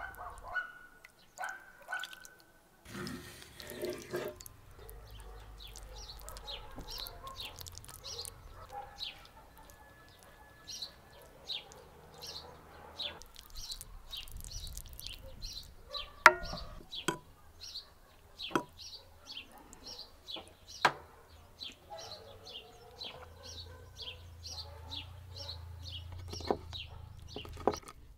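Farmyard birdsong: small birds chirping about twice a second, with hens clucking now and then. A few sharp clinks of utensils on ceramic dishes come in the second half.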